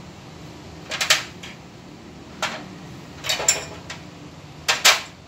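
Small steel bolts clinking and being set down in the painted metal carrying case of a PPR pipe welding kit, beside its heating dies: four short bursts of metal clicks and clatter, the loudest near the end.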